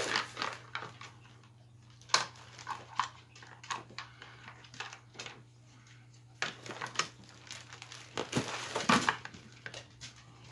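Handling noise from assembling a gaming chair: the metal armrest bracket clicking and knocking against the seat as it is lined up with the screw holes. There are scattered sharp knocks throughout and a longer stretch of rustling about eight seconds in.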